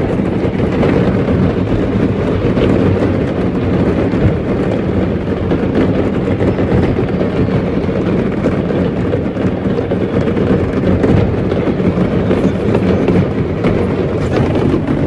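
Fireworks going off all at once in a burning pyrotechnics warehouse: a steady, dense crackle of many pops and bangs over a low rumble, heard from inside a car.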